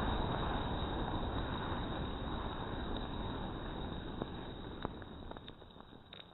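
About a kilogram of gunpowder burning in a fountain of flame and sparks: a loud, steady rushing noise that fades away as it burns out, with a few sharp crackles near the end.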